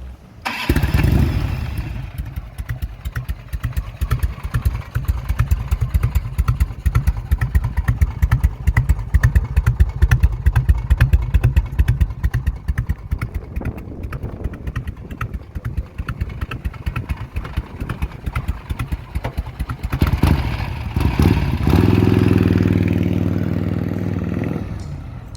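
1990 Harley-Davidson Electra Glide's Evolution V-twin running through dual SuperTrapp exhausts. It comes in loud about half a second in, then idles with an uneven loping beat. About twenty seconds in it revs up and holds a higher, steadier note until it cuts off.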